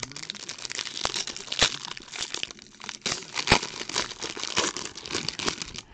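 Foil wrapper of a trading card pack being crinkled and torn open by hand: a dense crackling with sharp snaps scattered through it.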